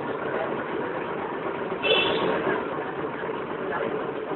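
Steady running noise of a tram, heard from inside the car, with street traffic around it. About two seconds in comes a brief high-pitched tone.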